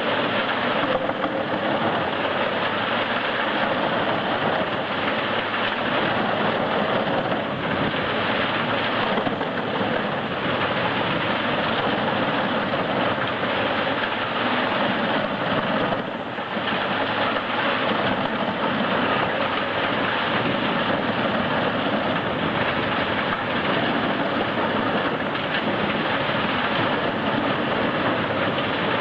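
Large industrial wood chipper running and chipping wood: a loud, steady, dense engine-and-grinding noise, with a brief dip about 16 seconds in.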